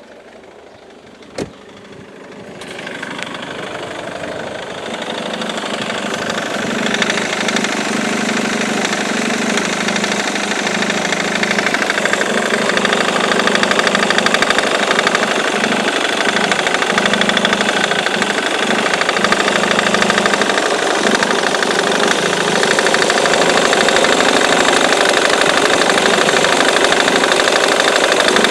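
Ford Mondeo Mk3 2.0 TDCi diesel engine idling, growing louder over the first several seconds and then running steadily, after a single sharp click about a second and a half in. It carries the strange noise that persists despite a new crankshaft pulley, belt tensioner and accessory belt.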